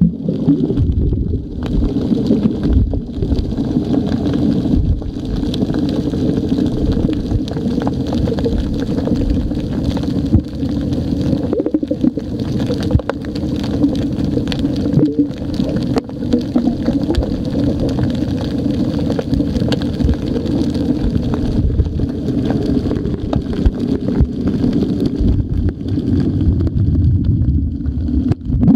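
Underwater recording: a boat engine drones steadily through the water, with gurgling and crackling water noise against the camera housing.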